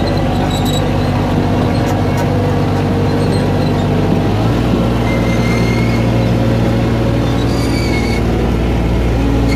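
Engine of a small farm ride train running steadily as the train rolls along, its note shifting to a new pitch about four and a half seconds in.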